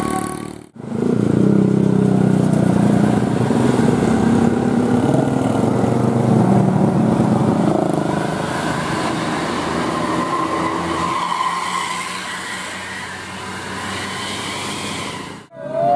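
A bus driving past close by: engine and road noise, loudest for the first several seconds and then easing off. The sound breaks off abruptly under a second in and again near the end.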